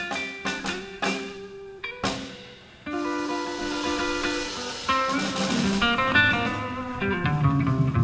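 A live blues guitar plays picked single notes over drums. About three seconds in, a held chord rings under a cymbal wash, and then the picking goes on.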